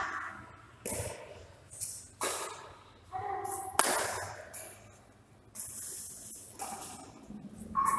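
A badminton rally: several sharp hits of rackets on a shuttlecock, spaced irregularly about a second or more apart, each fading quickly.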